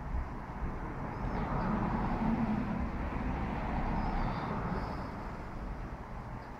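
A vehicle passing by, its sound swelling to a peak a few seconds in and then slowly fading, over a steady low rumble.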